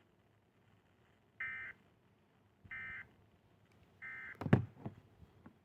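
Emergency Alert System end-of-message signal: three short bursts of buzzing digital data tones, about a second apart. A loud thump follows just after the third burst.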